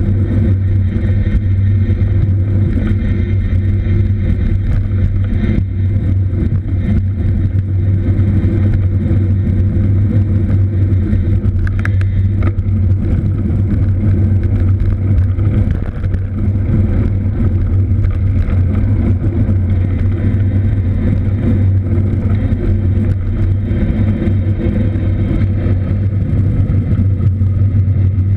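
Steady low rumble of wind and road noise from riding a cross bike, with a brief click about twelve seconds in.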